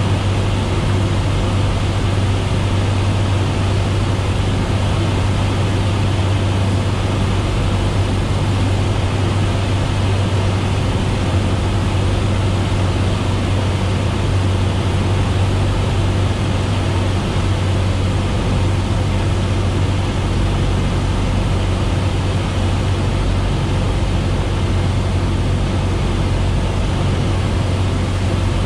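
Cabin noise of a Cessna 172SP in flight: its four-cylinder Lycoming engine and propeller droning steadily, with a low hum and rushing air, heard inside the cockpit.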